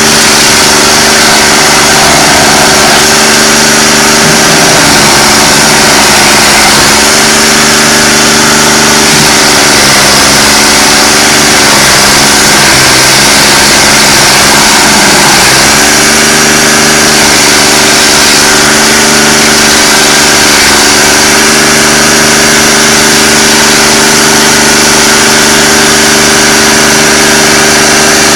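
Stump grinder engine running loud and steady, its pitch sagging and recovering again and again from about four to sixteen seconds in as the cutter wheel loads it while grinding the stump, then holding even.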